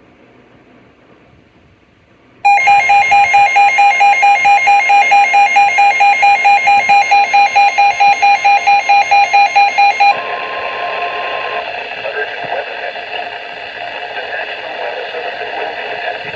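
Emergency Alert System attention tone: a loud beeping tone pulsing about five times a second starts about two and a half seconds in and stops some seven seconds later. A quieter, noisy sound follows.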